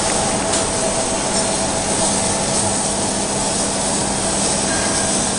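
Roller-type welding rotator (M61040) running, its drive turning a steel pipe on its rollers: a steady mechanical hum with a constant low tone and a fainter higher tone over an even hiss.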